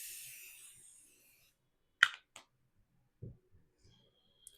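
Aerosol fixative spray hissing onto a soft pastel drawing, tapering off within the first second. About two seconds in come two sharp clicks, then a soft low knock a second later.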